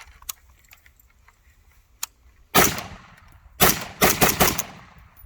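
AR-15-type rifle firing four shots: one, then about a second later three more in quick succession, the rifle cycling and feeding without a hitch.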